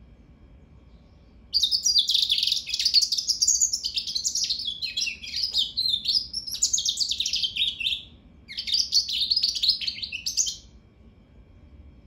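Hybrid goldfinch × African canary singing a long, fast twittering song of rapid high notes. The song starts about a second and a half in and has a short break near the end before it stops.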